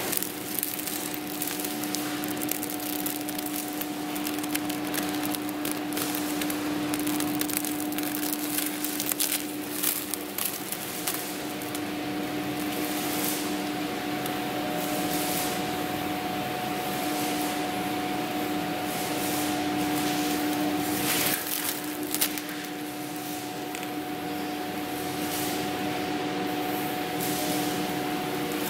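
Clear plastic wrapping on a new diesel engine rustling and crinkling as it is handled, over a steady machine hum.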